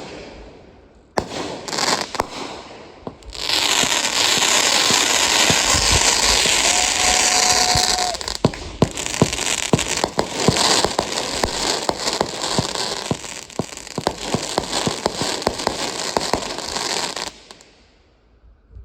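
Consumer fireworks going off: a few sharp bangs, then a loud dense crackling hiss from about three seconds in, turning into a rapid run of sharp pops and crackles that stops shortly before the end.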